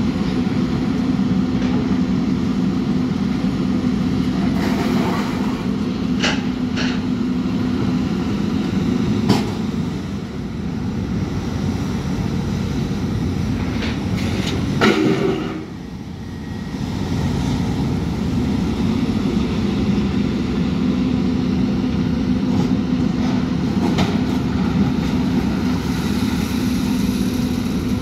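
Diesel engines of demolition excavators running steadily, with a few scattered clanks of metal and debris. The loudest and sharpest clank comes about 15 seconds in.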